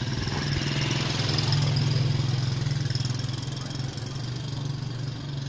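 A motor vehicle's engine idling steadily: a low, even hum, a little louder around two seconds in.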